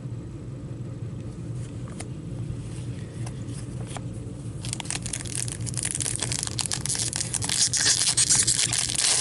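Foil wrapper of an Upper Deck hockey card pack being torn open and crinkled by hand, starting about halfway through and getting louder. A steady low hum runs underneath, with a few faint clicks before the crinkling.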